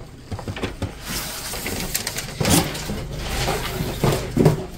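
Cardboard box and foam packaging being handled and shifted: rustling and scraping with a few soft knocks.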